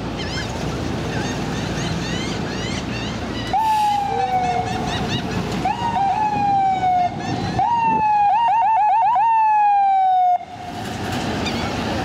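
Electronic siren of an FDNY ambulance sounded in short bursts, each tone rising quickly and then falling slowly. There is a quick run of chirps partway through, and the siren cuts off suddenly. Traffic noise runs underneath, and the siren is fainter during the first few seconds.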